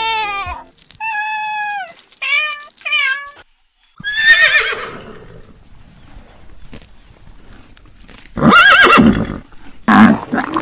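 A few short pitched animal calls, then a horse whinnying about four seconds in, a loud falling, quavering call, with further loud calls near the end.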